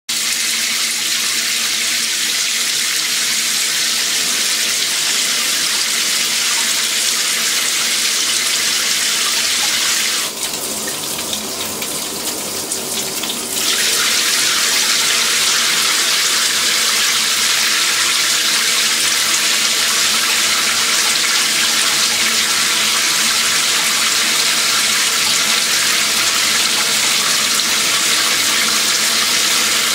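Water spraying steadily from a handheld shower head in a hissing rush. About a third of the way in, it drops quieter and duller for roughly three seconds, then comes back at full strength.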